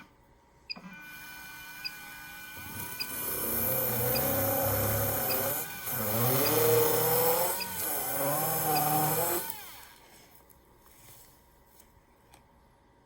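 Dental implant drill bur spinning with a thin steady whine, then cutting into an osteotomy site for several seconds, its pitch wavering and breaking off briefly twice before it stops near ten seconds in.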